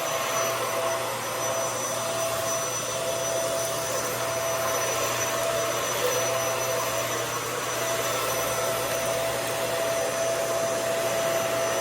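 Hoover Air Lift upright vacuum cleaner running steadily, a rushing suction-motor noise with a steady high whine. Its roller brush is not spinning, which the owner puts down to a loose connection or a bad roller brush motor.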